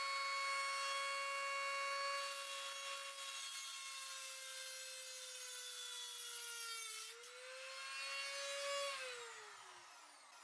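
Handheld rotary tool running with a steady high whine, its cut-off wheel grinding through a steel rod from about two seconds in to about seven seconds, the motor's pitch sagging a little under the load. About nine seconds in it is switched off and winds down with a falling whine.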